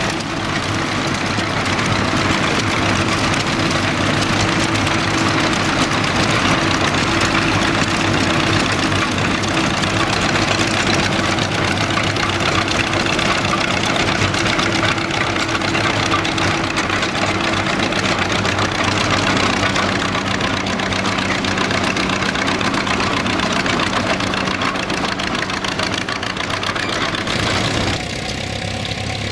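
Engine of a small vintage crawler tractor running at a steady speed as it drives across the field. About 28 s in the sound changes to another engine idling, a little quieter.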